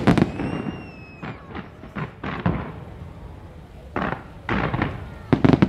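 Fireworks going off: a sharp bang at the start with a thin falling whistle after it, then scattered crackling bursts and a quick run of bangs near the end.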